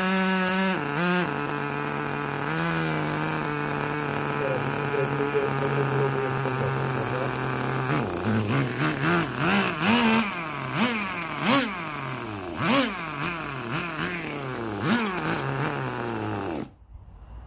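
Nitro glow engine of a 1/10 Tamiya RC car running with its glow-plug heater fitted: a steady idle for the first several seconds, then revved up and down in repeated quick throttle blips from about halfway, before cutting out suddenly near the end. The engine is cold and long unused, and the owner puts its stalling down to carburettor mixture adjustment.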